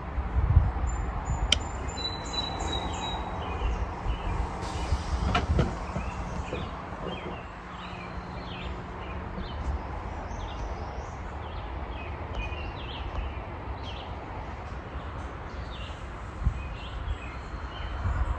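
Outdoor ambience of small birds chirping, with a steady low rumble of wind on the microphone. A few sharp knocks come in the first few seconds.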